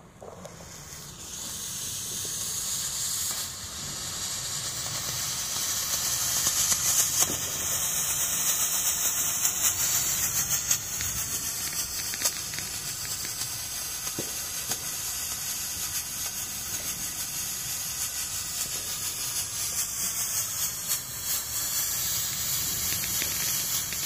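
Handheld yellow smoke flare burning with a steady hiss as it pours out smoke. The hiss builds over the first few seconds, then holds steady.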